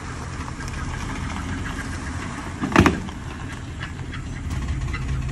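Ford Edge's 3.5-litre Cyclone V6 running with a low rumble, its bottom end failing from a main or rod bearing shedding metal. One sharp, loud bang comes a little under three seconds in.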